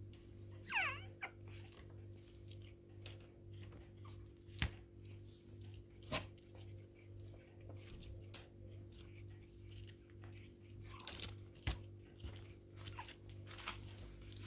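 Six-week-old Pomeranian puppies playing: one short, high puppy yelp about a second in, then a few sharp knocks and light scuffling, over a steady low hum.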